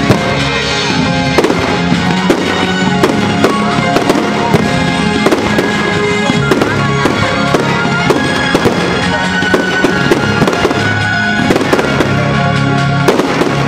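Aerial fireworks bursting in an irregular stream of sharp bangs, several a second at times, with music playing underneath.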